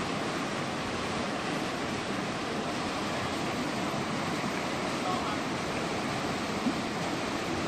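Steady rushing of whitewater river rapids running over boulders.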